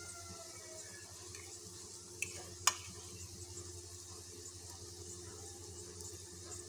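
Faint, steady sizzle of a paratha frying on a hot tawa, over a steady low hum. A rooster's crow trails off in the first second, and two sharp clicks come about two and a half seconds in.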